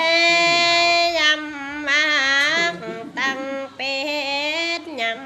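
Unaccompanied Dao folk singing: one voice holding long, high, slightly wavering notes in a few drawn-out phrases, with short breaks for breath between them.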